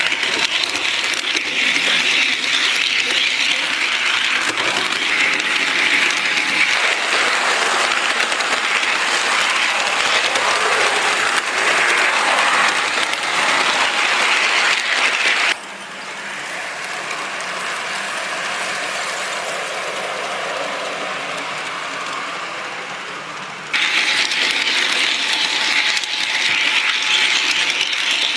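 G gauge model train running along garden railway track, heard from close on board: a steady mechanical rattling clatter of the running gear on the rails. A little past halfway it turns suddenly quieter and duller for about eight seconds, then the louder clatter returns just as suddenly.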